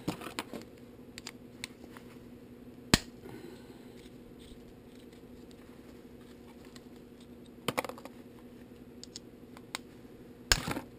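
A few sharp metal clicks and clinks of a screwdriver and small parts being handled while the screws are taken out of a Tomos moped clutch. The loudest click comes about three seconds in, and two more come near the end.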